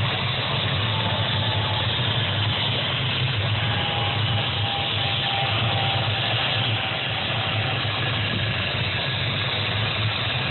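Radio-controlled model helicopter's engine running steadily, with a faint whine that slowly drops in pitch.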